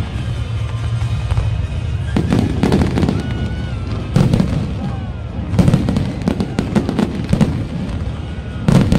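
Fireworks display: aerial shells bursting in a string of loud bangs over a constant crackle.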